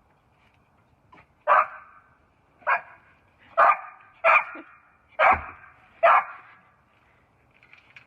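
A dog barking six times, about one loud bark a second. The dog is deaf and blind and is barking as its owner comes home.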